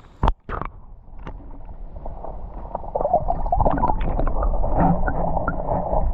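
Creek water splashing and gurgling close to the microphone as a caught smallmouth bass is let go back into the water. It starts with a sharp knock, gets louder about halfway through, and cuts off suddenly.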